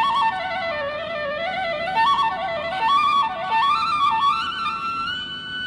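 Background music: a single melody line moving up and down in small steps over a soft accompaniment, settling on a long held note near the end.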